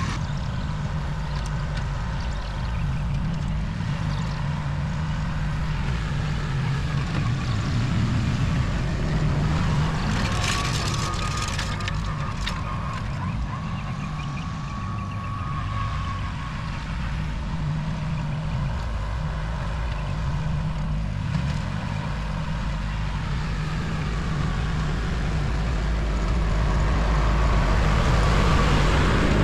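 Engine of a compact machine running steadily while it drags a rock rake over rough ground. There is a brief rattle and scrape of rocks about ten to thirteen seconds in, and the engine rises a little near the end.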